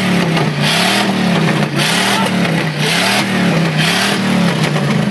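Chevrolet truck's 350 small-block V8 held at full throttle against its rev limiter, the engine note surging up and down about once a second with a rasp at each swing.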